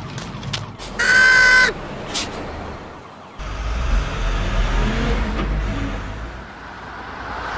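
A horn honks once, a steady tone lasting under a second, about a second in. About three seconds later a low vehicle engine rumble sets in and fades away after a couple of seconds.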